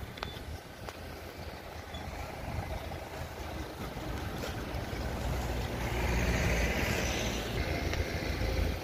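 Road vehicle noise: a steady low engine and tyre rumble with a hiss that swells to a peak about six to seven seconds in, like a vehicle passing close by.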